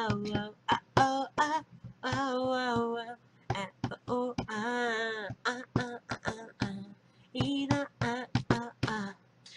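Unaccompanied voice singing without words: a few long held notes mixed with many short, clipped vocal sounds.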